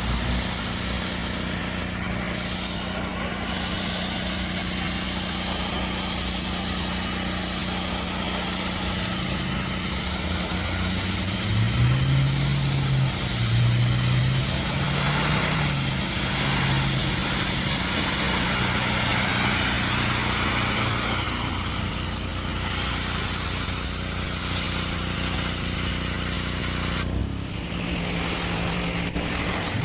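Pressure washer running steadily while its high-pressure water spray hisses against concrete, blasting off grime. A low hum rises in pitch about ten seconds in and holds for a while, and the sound dips briefly near the end.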